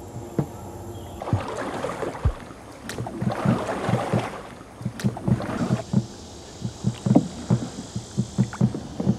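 Canoe being paddled: water swishing and splashing along the hull, strongest in the first half, with frequent short dull knocks.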